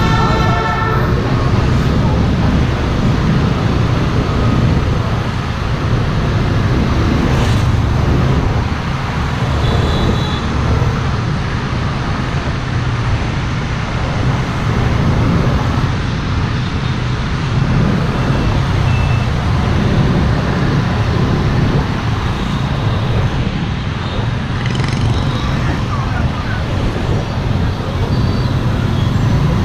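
Steady, loud road and wind noise from travelling in traffic, heaviest in the low range. It holds at an even level throughout.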